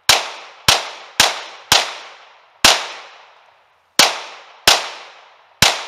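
Gen 4 Glock 17 9mm pistol firing 124-grain full metal jacket rounds, eight shots in quick succession. The first four come about half a second apart, the rest about a second apart, and each report trails off in a short echo.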